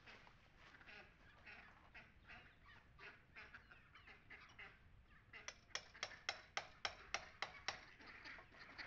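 Hammer driving a chisel into the old mortar between the stones of a wall: softer, irregular knocks at first, then from about halfway a fast, steady run of sharp metallic strikes, about four a second.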